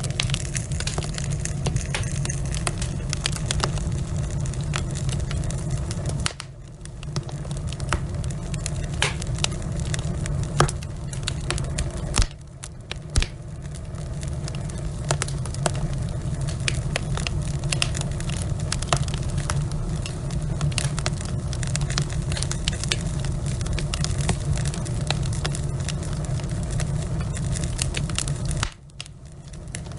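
Wood logs burning in a fireplace, crackling with irregular sharp pops over a steady low rush of the flames; a few pops stand out loud about halfway through.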